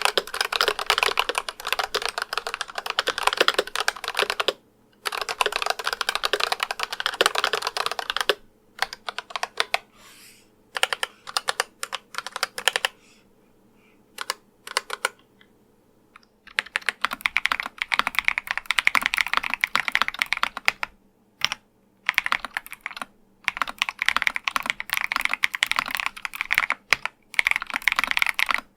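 Typing on a Razer Huntsman Analog V2 keyboard with analog optical switches: fast runs of keystrokes, then sparser single presses with pauses. About 16 seconds in it changes to typing on a Skyloong GK104 Pro mechanical keyboard, in dense runs of keystrokes with a slightly brighter click.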